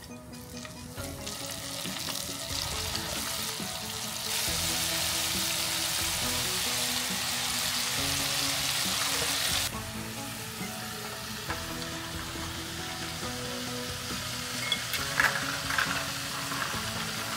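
Flour-coated chicken feet deep-frying in hot oil in a stainless steel pot: a steady, loud sizzle that drops suddenly about ten seconds in and carries on more softly. Background music with steady notes plays underneath.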